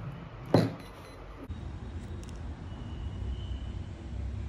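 A single sharp click about half a second in as an XT60 battery connector is pushed home on an RC buggy. It is followed by a low, steady rumble that slowly grows louder.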